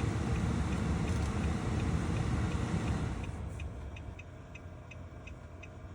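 Low rumble of a car running, heard from inside the cabin, dying away about three seconds in. A faint, even ticking about three times a second runs under it and carries on alone.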